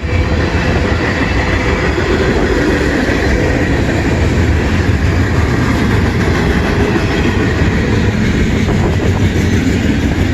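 CN freight train rolling past, a steady, loud noise of wheels and cars on the rails with most of its weight low down.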